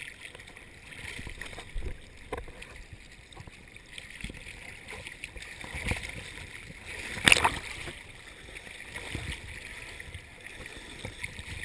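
Sea water sloshing and lapping around a camera bobbing at the surface, with small ticks of spray, and one sharper splash about seven seconds in.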